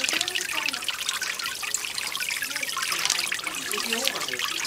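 Water from a small garden fountain trickling and splashing steadily, with many quick spatters.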